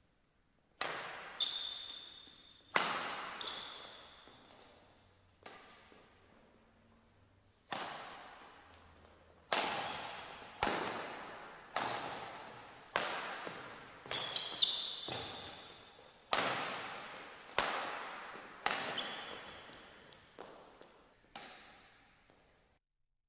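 Badminton rally: racket strikes on a shuttlecock, about one a second and irregular, each echoing in a large sports hall, with short high squeaks of shoes on the court between some hits.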